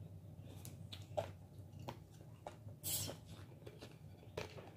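Someone drinking cola from a plastic bottle: a run of faint gulping swallows about every half second, with a louder hiss about three seconds in, over a low steady hum.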